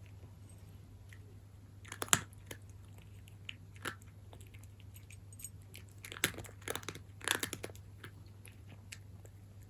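A cat crunching dry kibble, in short clusters of sharp crunches a couple of seconds apart.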